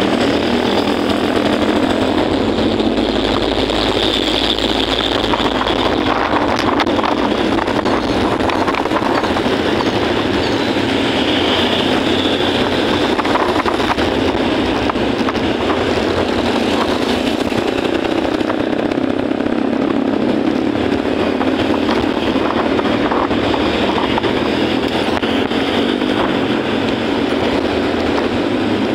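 Steady running noise of a motorcycle being ridden through city traffic: the bike's engine and the traffic around it, with no break.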